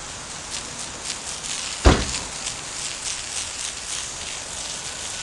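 Steady outdoor noise with frequent light rustling clicks, and one heavy thump just before two seconds in.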